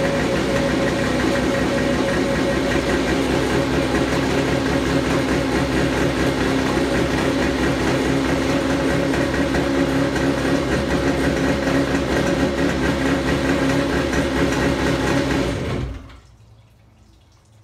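1987 Kawasaki X2's two-stroke twin engine idling steadily on its stand, fed by a garden hose for cooling water. It is on its first run after restoration and, in the owner's view, still needs carburettor tuning. About 16 seconds in the engine is shut off and cuts out suddenly, leaving faint dripping water.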